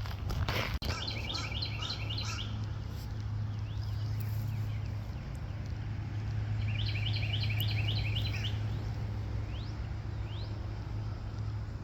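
Songbird singing two quick runs of repeated high chirping notes, one near the start and one past the middle, over a steady low hum.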